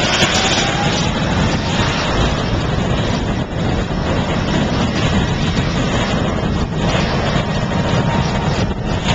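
Boeing 777-200's twin jet engines at takeoff power during the takeoff roll: a loud, steady rumble with a faint high whine over it.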